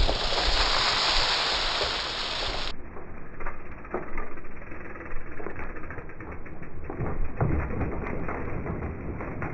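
Mountain bike tyres skidding through loose dirt and leaves as the bike passes close by, a loud rush of noise that cuts off suddenly about three seconds in. After that, a quieter, duller stretch with scattered ticks and a low rumble of tyres on the dirt trail a few seconds later as a rider approaches.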